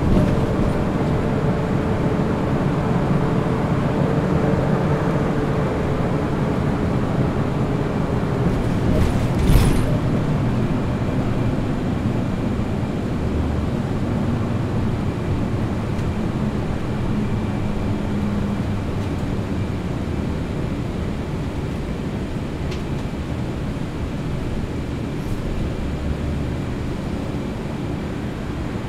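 Interior noise of a Q70 city bus cruising on a highway: steady engine drone and tyre and road rumble, with a single short knock about nine and a half seconds in.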